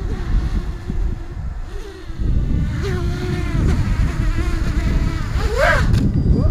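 Realacc GX210 racing quadcopter's 2300kv brushless motors whining on a 4S battery, the pitch wavering and gliding with the throttle, and sweeping up and back down sharply near the end. Heavy wind noise on the microphone runs under it.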